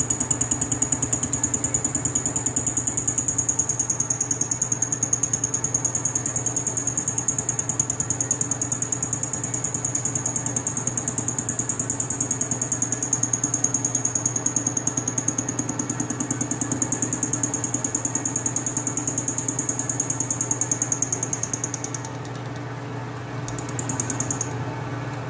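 Metal lathe running a gear-cutting setup for bevel gear teeth, a steady machine hum with a fast, even flutter and a high whine. About 22 seconds in the whine stops and the hum goes on a little quieter.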